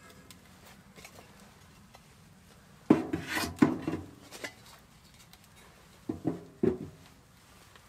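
Pieces of firewood knocking against the steel firebox of a wood-burning tent stove as they are fed in by hand through its round door: a cluster of sharp knocks about three seconds in, and two more a little after six seconds.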